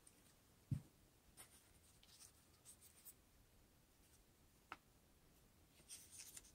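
Faint rustling and rubbing of construction paper as a paper leaf is pressed and wrapped around a drinking-straw flower stem. A soft knock on the table comes just under a second in, and a small sharp tick near five seconds.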